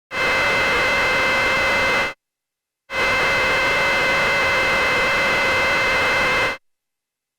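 Synthesized sound effect for a TIE fighter flight sound: a steady, noisy roar with a few high whistling tones held on top, played twice, about two seconds and then about three and a half seconds, each starting and cutting off abruptly.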